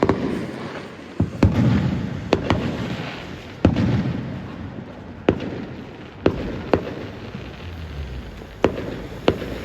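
Fireworks going off: about a dozen sharp bangs and cracks at irregular intervals, each trailing off in an echoing rumble.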